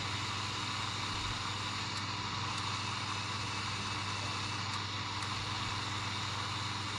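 Simulated excavator engine sound from the phone's control app for the Lego Technic Liebherr R 9800, running at a steady idle-like hum through the phone speaker.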